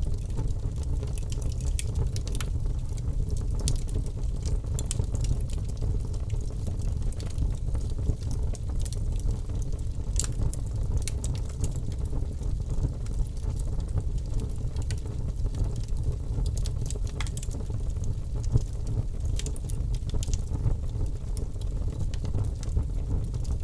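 Wood fire crackling in a fireplace: a steady low rush of flame with irregular sharp pops and snaps scattered throughout.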